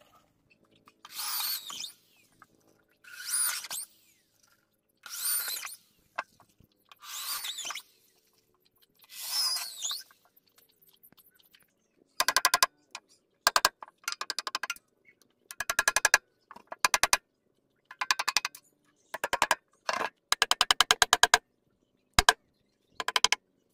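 Handheld electric drill boring into a hardwood frame in five short bursts, each about a second long. After a pause about halfway through, a hammer drives a wooden peg into the joint in clusters of rapid sharp knocks.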